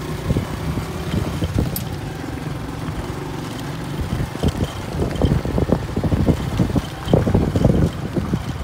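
A vehicle travelling along a road: a steady low rumble with irregular knocks and thumps throughout.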